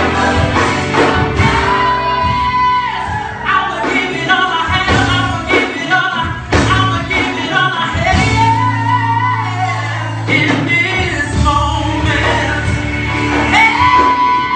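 Samoan youth church choir of men and women singing a gospel song together, with some long held notes.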